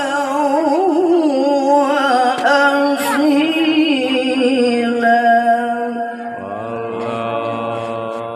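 A male qari reciting the Quran in a high, melismatic voice, with quick wavering ornaments and long held notes. A long note is sustained from about two-thirds of the way in and trails off at the end.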